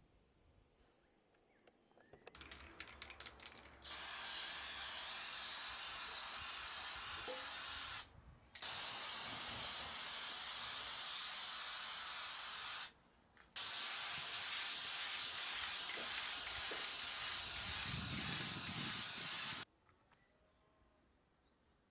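Aerosol spray can rattled briefly, then sprayed in three long hissing bursts with short breaks between; the last burst swells and fades about twice a second.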